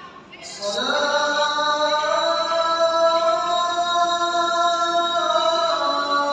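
A muezzin's voice chanting the Fajr call to prayer (adhan). It comes in about half a second in and draws out one long melodic note, which steps slightly lower near the end.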